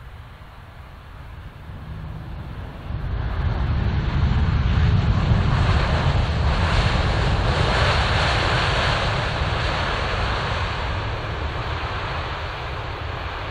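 Boeing 787 Dreamliner's jet engines roaring as the airliner rolls out along the runway just after touchdown. The noise swells to a loud, deep rumble about three seconds in and slowly dies away as the plane passes.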